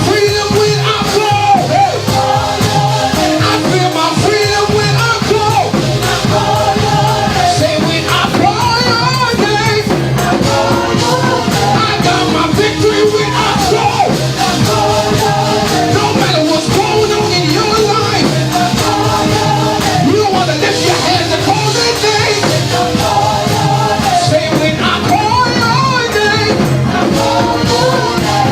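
Gospel praise song: voices singing a melody over a full band, steady and loud.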